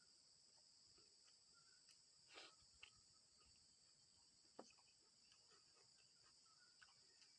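Very faint, steady high chirring of crickets, with a few soft clicks and a brief rustle.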